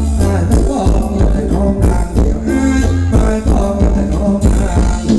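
Live Thai luk thung band music, loud through a stage PA: a heavy bass and drum beat with a singing voice over it.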